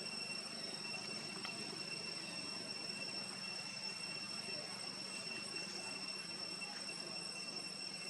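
Insects droning steadily in one high, unbroken tone, with a few faint chirps over a soft outdoor hiss.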